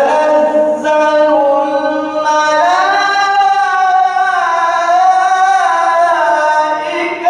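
A man's voice reciting the Quran in a melodic, chanted style, drawing one long, ornamented phrase out on held notes that step up in pitch a little under halfway through.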